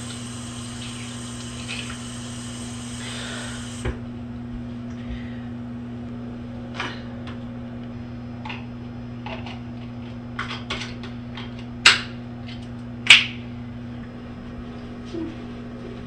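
Steady low hum of an old soundtrack with scattered short clicks and knocks. The two loudest knocks come about twelve and thirteen seconds in.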